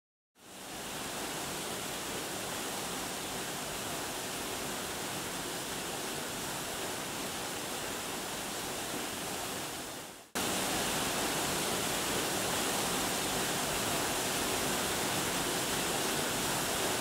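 Steady rush of a waterfall, Grotto Falls, pouring into its plunge pool. It fades in just after the start, cuts off briefly about ten seconds in, and comes back a little louder.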